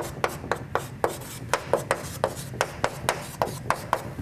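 Chalk writing on a chalkboard: a run of quick, sharp chalk taps and scrapes, about three or four strokes a second.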